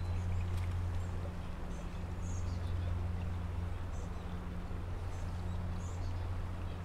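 Creek chub frying in a small pot of oil on a butane camp stove: a steady low hum and hiss with a few faint light crackles.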